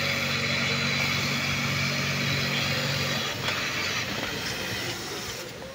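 Yamato FD-62G-12HS feed-off-the-arm flat seamer running steadily at speed while sewing a trouser inseam, then stopping about three seconds in with a click, as the seam runs off the end. A steady hiss carries on after it stops.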